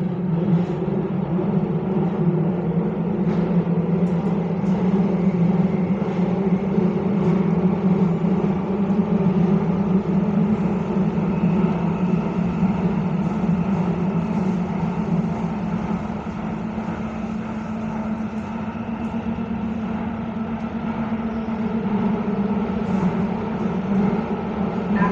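Copenhagen Metro train running at speed through a tunnel, heard from inside the car: a steady low rumble with a constant motor whine above it, dipping slightly in loudness in the second half.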